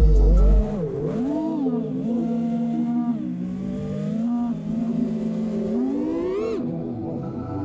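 Small drone's electric motors and propellers whining, several close pitches that rise and fall with the throttle, with a sharp rising sweep about six seconds in.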